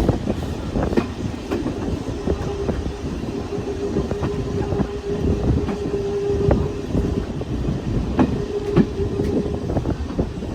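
Train rolling along the track, its wheels clicking irregularly over rail joints. A steady high tone is held from about three seconds in until shortly before the end.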